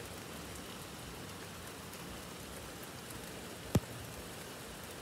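Steady rain falling, an even hiss of drops. One sharp tap stands out near the end.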